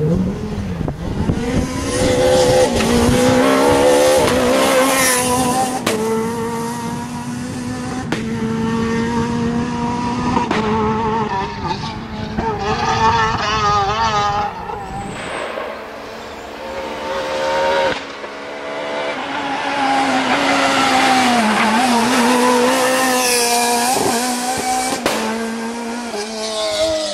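Renault Clio rally cars driven flat out, engines revving high and dropping at each gear change as they pass one after another. The sound fades for a few seconds past the middle, then a car comes up loud again.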